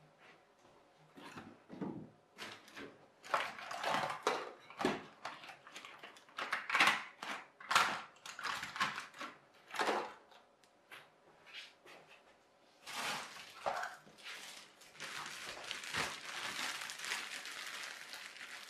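Rummaging for batteries: a string of irregular rustles and knocks. From about two-thirds of the way through, a plastic bag of loose batteries crinkles steadily as it is handled.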